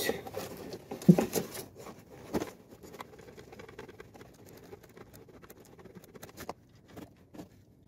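A plastic oil-catch container being shifted and pressed against the motorcycle's final-drive housing: scattered light clicks and rustling with a sharper knock about a second in, busiest in the first few seconds. A faint patter runs under it as gear oil drains from the just-opened drain plug.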